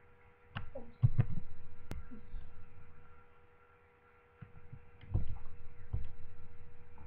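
Dull low thumps close to a desktop microphone, one cluster about a second in and another near the end, over a steady electrical hum, with one sharp click in between.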